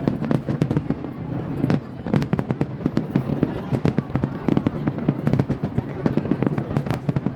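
Aerial fireworks display going off in a rapid, continuous barrage of bangs and crackles.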